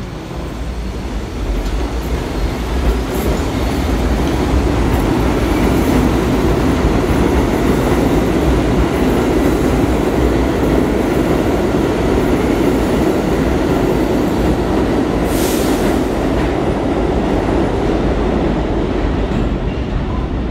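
Bombardier R62A subway train pulling out of the station, its wheels and running gear rumbling and clattering on the rails. The sound grows louder over the first few seconds as it picks up speed, then holds steady as the train runs on into the tunnel. A brief high hiss comes about fifteen seconds in.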